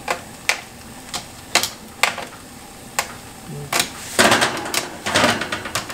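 Metal tongs clacking against a metal sheet pan of chicken wings as they are turned, five or six sharp clicks spread out. In the second half come two longer scrapes of metal on metal as the pan is dragged on the oven's wire rack.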